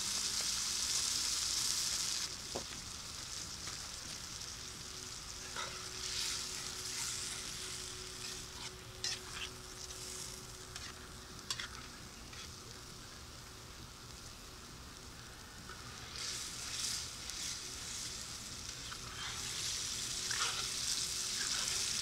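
Tomato sauce sizzling and simmering in a cast iron Dutch oven over a campfire, the sizzle swelling and fading in waves. A spoon stirs it, scraping and clicking against the pot now and then.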